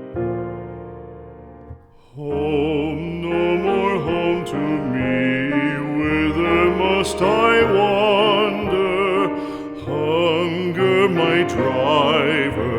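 Background music: piano chords die away, then about two seconds in a classical-style vocal with strong vibrato comes in over the accompaniment.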